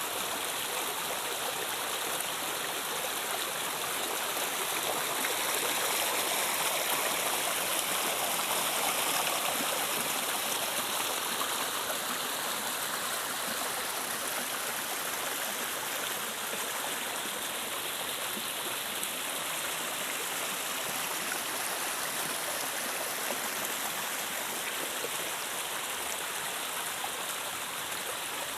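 River water flowing over rocks: a steady rushing with gurgling, swelling a little for a few seconds near the start.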